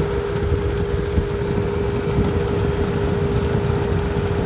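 Through-the-wall air conditioner running, its reciprocating compressor just kicked on: a steady hum with one constant tone over a low rumble of fan and air noise. The compressor itself is very quiet and barely heard under the fan.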